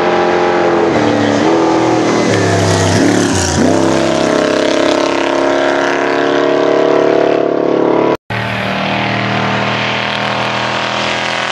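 Chevrolet Pro Truck race engine revving hard on a hill climb. Its pitch drops and climbs again several times in the first four seconds, then holds high. The sound cuts out abruptly about eight seconds in, and engine noise resumes at once.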